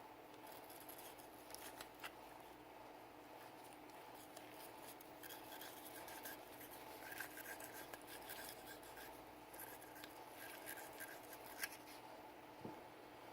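Faint scratching, rubbing and small clicks of a Sig Sauer P320 pistol being cleaned by hand, busiest in the middle, with one sharper click near the end.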